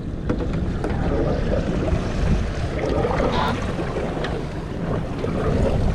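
Wind buffeting the microphone over the sound of sea water washing around a small fishing boat.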